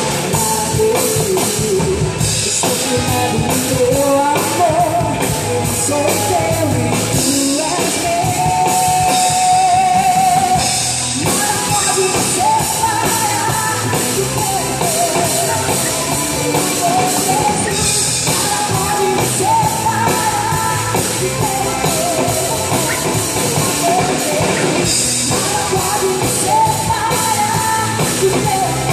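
Live worship band playing in a rock style: drum kit and guitar under a melodic lead line that holds and bends notes.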